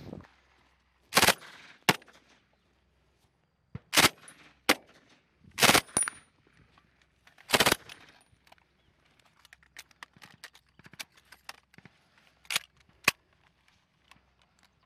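Gunfire from infantry weapons: about nine sharp single shots and short doubles at irregular spacing, one to a few seconds apart, rather than a sustained automatic burst.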